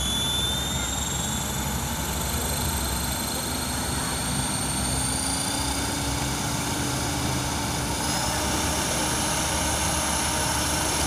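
Align T-Rex 500 electric RC helicopter spooling up on the ground: the brushless motor and drive gears whine, climbing slowly in pitch, over the whirring hiss of the spinning rotor blades.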